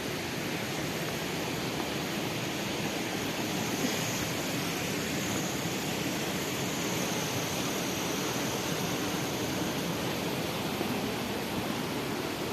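Steady rushing of water from a mountain stream or waterfall, an even hiss with no breaks.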